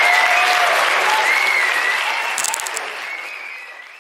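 Audience applauding and cheering, fading out over the last second or two.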